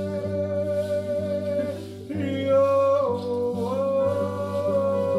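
Slow ambient live music: a steady low drone under a sustained higher tone that moves to new pitches about two seconds and three and a half seconds in, with an electric guitar playing.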